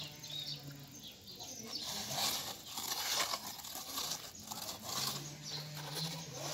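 Gritty scraping and rustling of a plastic toy excavator dragged through dry sandy dirt, loudest in the middle, with a low steady hum at the start and again near the end.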